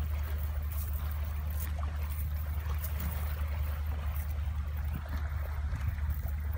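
Steady low rumble of outdoor background noise, with faint scattered rustles and ticks as a cast net is sorted by hand on grass.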